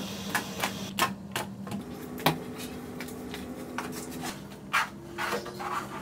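Floor mopping on a tiled kitchen floor: scattered clicks, taps and short scrapes as the mop is worked and knocked against the tiles, over a low steady hum.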